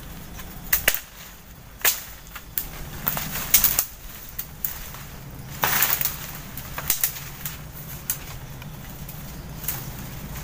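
Machete chopping at branches and saplings in thick undergrowth: a series of sharp, irregular strokes, with a longer swish of leaves and twigs near the middle.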